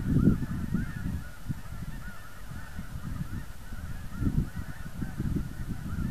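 A huge flock of geese calling overhead: a dense, continuous chorus of many overlapping honks. Under it runs a gusty low rumble of wind buffeting the microphone, which is the loudest part of the sound.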